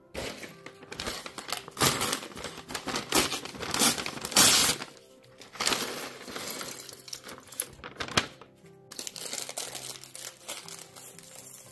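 A paper LEGO parts bag being crinkled and torn open, with irregular crackling rustles. Near the end the plastic bricks spill out onto the mat with a clatter of small clicks.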